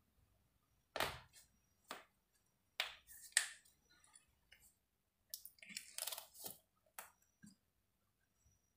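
A scattering of short, sharp clicks and crackles close to the microphone, coming irregularly in two bunches with gaps between.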